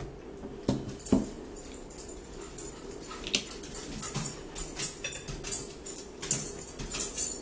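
A dog whining and whimpering now and then, over short clicks and scrapes of forks and a knife on dinner plates.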